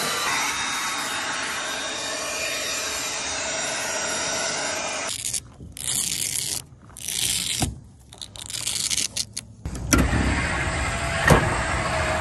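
Cordless leaf blower running steadily for about five seconds. Then come short sliding and rubbing noises in bursts, as a roll-up tonneau cover is worked over a pickup bed. Near the end, a steady electric motor hum with a couple of sharp knocks, as the RV's powered landing gear moves.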